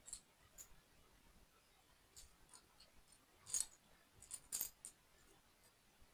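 Small plastic toy building parts being handled, clicking and clattering against each other: a few light clicks, then two louder clatters about three and a half and four and a half seconds in.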